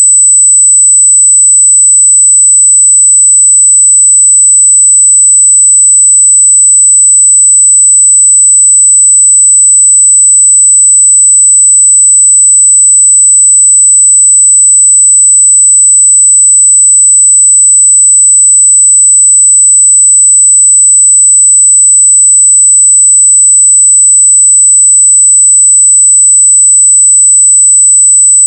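A pure 8 kHz sine-wave test tone at 0 dB, one steady high-pitched tone held unchanged at a very loud level.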